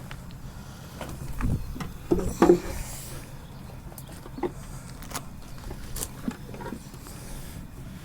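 Wooden beehive boxes knocking and clunking as they are handled, a handful of scattered thuds and knocks, the loudest about two and a half seconds in, over a steady low hum.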